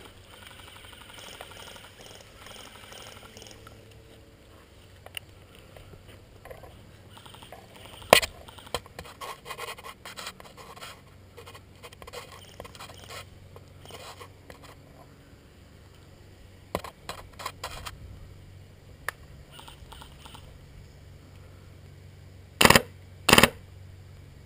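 A helmet-mounted camera scraping and bumping against a plywood bunker wall, with scattered sharp knocks and clicks. Two loud, short, sharp bursts come near the end.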